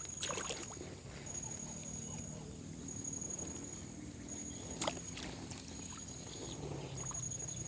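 Riverside outdoor ambience: a high, insect-like buzz that pulses on and off about once a second over a steady hiss, broken by a couple of sharp clicks near the start and about five seconds in.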